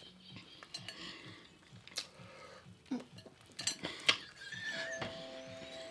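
Close-up eating at a table: cutlery and dishes clink in scattered sharp clicks, with mouth noises.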